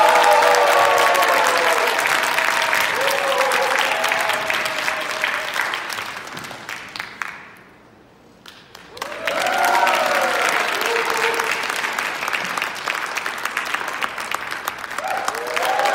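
Audience clapping with voices calling out and cheering over it. The applause dies away almost completely about halfway through, then swells up again.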